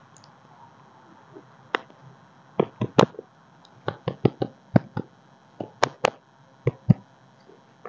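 Irregular sharp clicks and knocks, about fifteen over five seconds starting a little under two seconds in: the noise of a tree being worked out of its plastic pot for unpotting.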